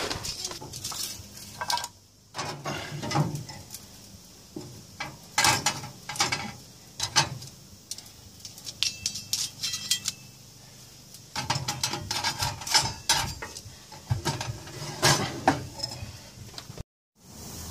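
Thin sheet-steel wood chip box and drawer of a gas smoker being handled: irregular clinks and metal clatter in bunches as the box of wood chips is set into the drawer and the drawer is slid shut.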